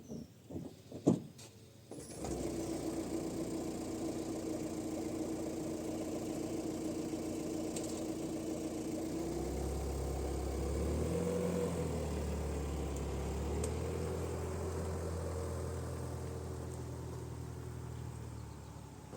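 An engine running steadily, starting abruptly about two seconds in, with a deeper drone joining midway and fading near the end.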